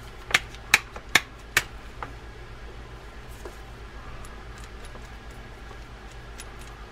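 Sharp light taps on a baitcasting reel's frame as its level-wind line guide pawl is worked out of its cylinder: four in quick succession about 0.4 s apart, then a few fainter clicks. A low steady hum runs underneath.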